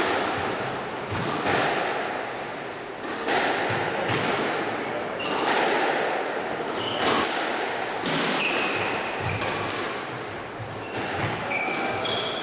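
Squash ball hits echoing in the enclosed court, a sharp knock every second or two, each trailing off over about a second. Later on, short high squeaks of shoes on the wooden court floor join in.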